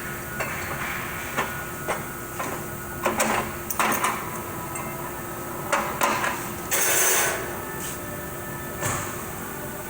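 Hand tools and metal parts knocking and clinking on a 4L60E automatic transmission while its tailhousing pinion and bushing are taken out. The knocks are irregular, and there is a short scraping hiss about seven seconds in.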